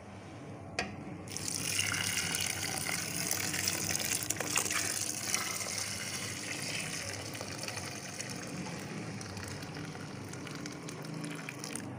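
Boiled milk poured slowly from a jug into a pot of grated carrots: a small knock about a second in, then a steady gushing pour that eases off near the end.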